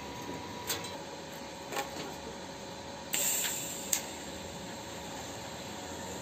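A few light knocks as the steel muffler is shifted around for welding, with a short hiss about three seconds in, over a faint steady hum.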